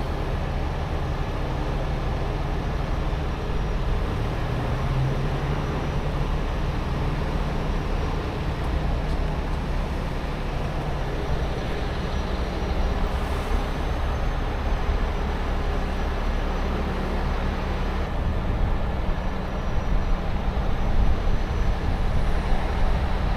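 Heavy rotator tow truck's diesel engine running steadily, with a brief rise in engine speed about five seconds in.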